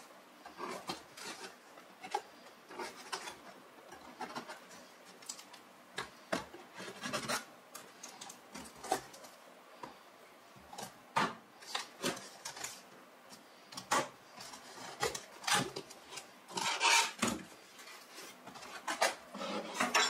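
A small blade slitting packing tape on a cardboard box, in a run of short scraping strokes, followed by the cardboard flaps rubbing as they are pulled open, loudest about three seconds before the end.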